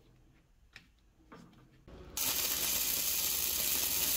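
Stick-welding arc crackling and hissing as a pink-coated electrode welds a steel pulley onto its shaft. It strikes about two seconds in, after a few faint clicks, and burns steadily for about two seconds before cutting off.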